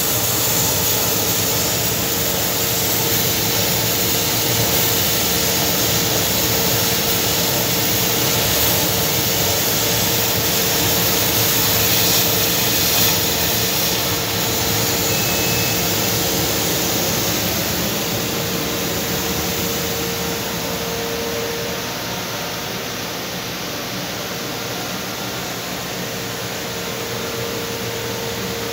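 130 W CO2 laser cutting machine running while it cuts a pattern in a wooden sheet: a steady rush of air from its fans and air-assist, with a steady hum. A little quieter about three quarters of the way in.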